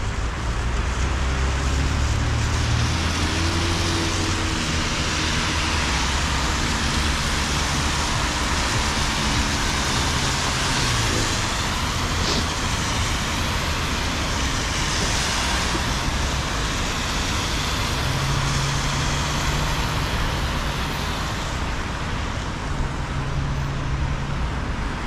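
City traffic on wet roads: a steady hiss of tyres on wet asphalt over low engine rumble, with a vehicle passing close about halfway through.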